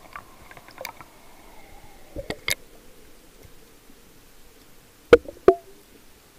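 Sea water heard from a camera going from the surface to underwater beside a rock: a muffled underwater wash with scattered clicks, a few knocks about two and a half seconds in, and two loud sharp knocks about five seconds in, half a second apart.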